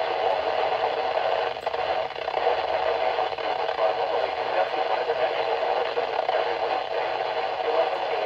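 Weather radio receiver putting out steady hiss and static with no alarm tone. The slot where the 1050 Hz warning tone should sound carries only noise, which marks the weekly test as failed.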